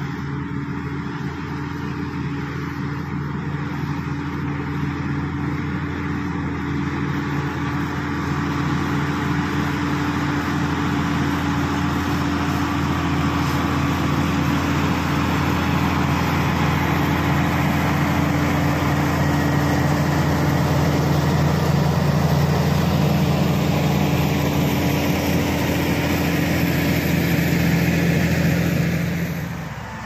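Diesel engine of a Shantui SD16 crawler bulldozer running steadily under load as it pushes a pile of soil, growing louder as it comes closer, then dropping off near the end.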